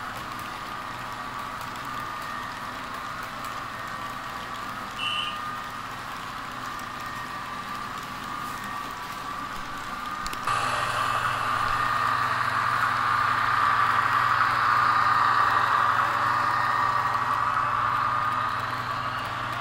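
Model freight train running on its track: a steady rolling of metal wheels on the rails with a thin motor whine. Everything becomes abruptly louder about halfway in, as a train of container wagons runs close by.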